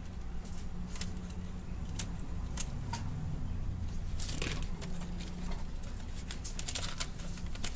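Scattered small clicks and rustles of hands handling the wiring and plastic parts of a disassembled Brother DCP-T710W inkjet printer, with a short run of quick clicks near the end, over a steady low hum.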